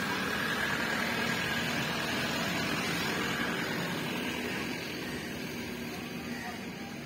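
A steady engine or motor hum under a wash of noise, easing off slightly in the second half.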